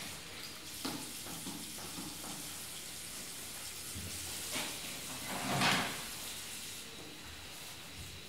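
Public toilet ambience in a train station: a steady hiss with a few scattered knocks about a second in, and a louder rush of noise lasting about a second, five and a half seconds in.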